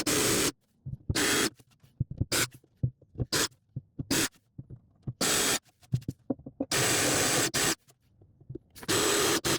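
A drill boring holes into wood, run in a string of short bursts of a second or less with pauses between them.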